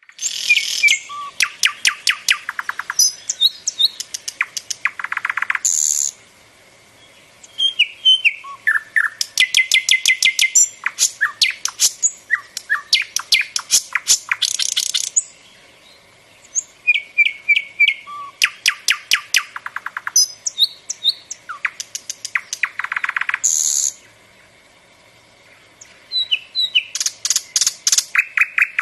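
A songbird singing in long, varied phrases of rapid repeated notes and trills, each phrase lasting several seconds, with short pauses between them.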